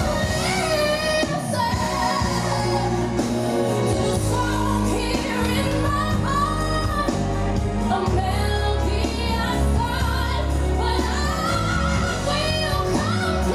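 Pop song with a woman singing long, wavering held notes over a steady bass line.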